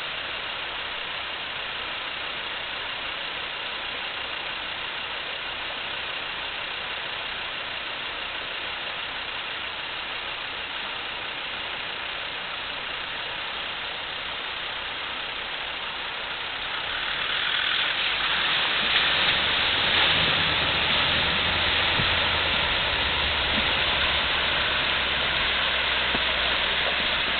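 River water rushing over a shallow ford, a steady hiss that grows louder and brighter about two-thirds of the way through.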